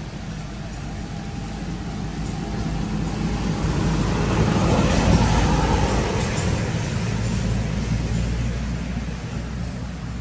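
A motor vehicle driving past: its engine and tyre noise swell to a peak about halfway through, then fade away.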